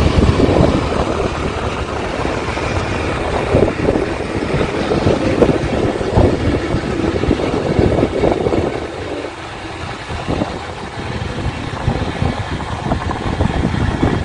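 Motorcycle on the move: engine noise mixed with rough rushing wind and road noise, growing quieter from about nine seconds in.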